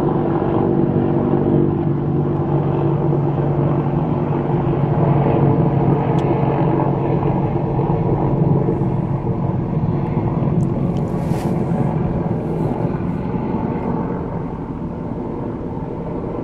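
Airplane flying over, a steady low rumble heard from inside a car, easing off a little near the end.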